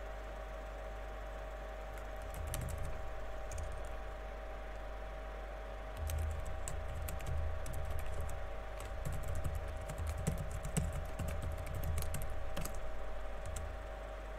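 Typing on a computer keyboard: a short burst of keystrokes about two seconds in, then a longer run of typing from about six seconds in until near the end, over a steady hum.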